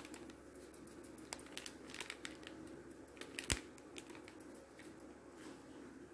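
Faint scattered clicks and rustling of a steel spoon scooping chaat masala powder from a steel container, with one sharper click about three and a half seconds in, over a faint steady hum.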